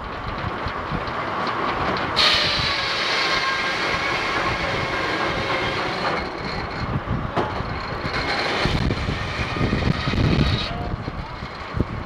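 Large circular head saw of a steam-powered sawmill cutting through a log as the carriage feeds it past the blade: a high, steady whine starts sharply about two seconds in and cuts off near the end as the blade leaves the cut, over the low rumble of the mill running.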